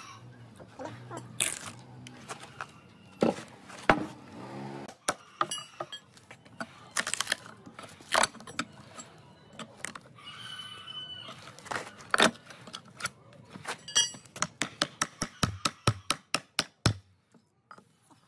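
Old wooden railway sleeper being split and pried apart with a steel rebar bar: scattered sharp cracks and splintering of the weathered timber, and knocks of the bar against the wood. A quick run of light taps comes near the end.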